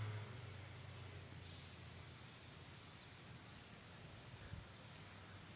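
Quiet ambience with faint, short, high chirps of small birds, repeating about every half second.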